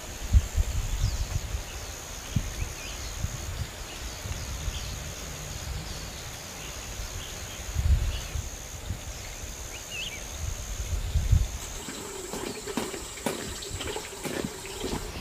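Outdoor garden ambience: a steady high-pitched insect drone with scattered short bird chirps, and wind rumbling on the microphone in gusts. Near the end comes a run of light knocks and clicks.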